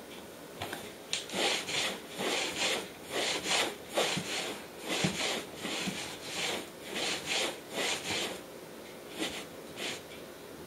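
A hand rubbing a cloth back and forth across a wooden floor in quick scrubbing strokes, about two a second. The strokes start about a second in and stop near the end.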